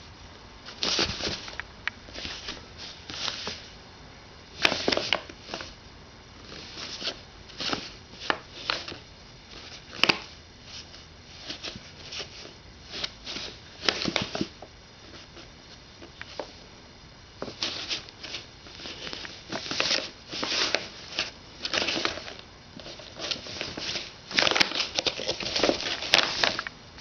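Brown paper bag crinkling and rustling in many short, irregular bursts as a Siamese cat thrashes and paws inside it.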